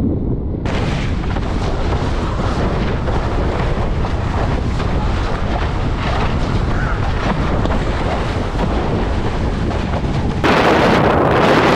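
Wind buffeting the microphone of a camera mounted on a windsurfer's rig at speed, mixed with the rush of choppy water under the board. Near the end it changes abruptly to a louder, hissier rush.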